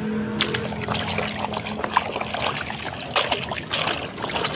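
Plastic toys being swished and dunked by hand in a basin of muddy water, with irregular splashes and dribbling water.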